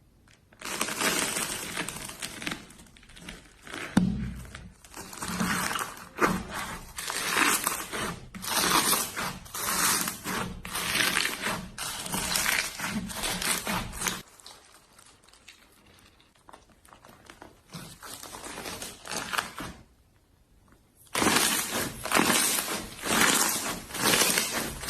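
Hands squeezing and kneading slime, making crackly, squishy bursts about once a second; the bursts turn much fainter for several seconds after the middle, then come back loud near the end.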